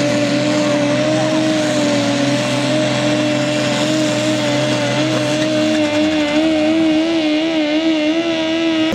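Ford 8000 pulling tractor's diesel engine running flat out under the load of a weighted sled, a loud steady note held at one pitch. In the last few seconds the note wavers up and down.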